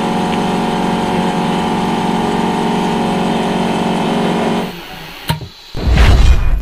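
Phone-screen separator machine's small vacuum pump motor running with a steady hum, which stops about four and a half seconds in. A sharp click follows, then a loud low boom near the end.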